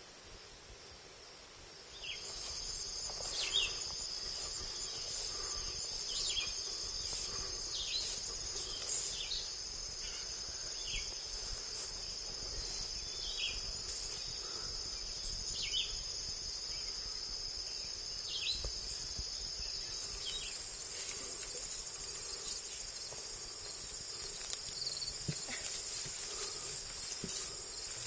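Steady high-pitched chorus of crickets or similar insects, setting in about two seconds in, with a second, higher insect band joining about two-thirds of the way through. Short falling chirps recur over it every second or two.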